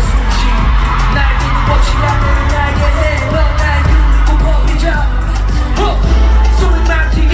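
Live concert hip-hop/pop music played loud over a PA system, with a heavy bass beat and singing.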